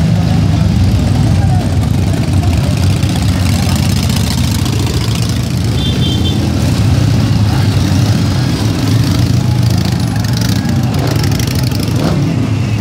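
A procession of cruiser motorcycles riding slowly past, many engines running together as a steady, loud, low sound that swells slightly as individual bikes go by.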